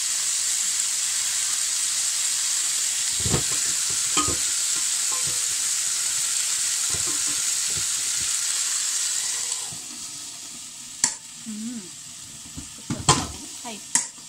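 Chicken pieces sizzling steadily in a hot double-sided fry pan as they are basted with soy-based sauce. About two-thirds of the way through, the sizzle drops off sharply as the pan is shut, followed by several sharp clacks from the pan's halves and handles.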